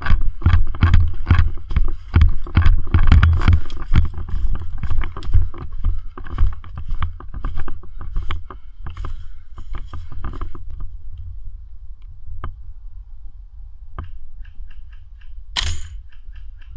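Footsteps through brush and mud with clothing and gear rustling, irregular and close, stopping about ten seconds in. After that it is much quieter, with a few scattered clicks and one sharp crack near the end.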